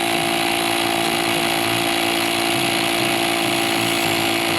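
Portable battery-powered tyre air compressor running steadily with an even hum, pumping up a motorcycle tyre to a preset pressure.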